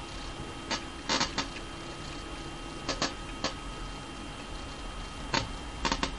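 Tefal steam iron being pushed over thick fabric: scattered short clicks and knocks, some in quick pairs, over a steady hiss.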